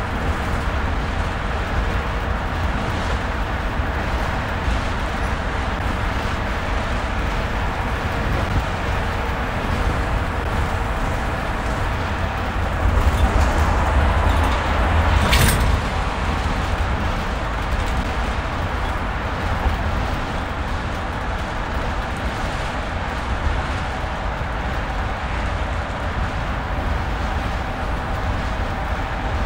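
Steady road and engine noise inside a car's cabin at highway speed, mostly a low rumble of tyres on the road. It swells a little about halfway through, where there is one brief sharp knock.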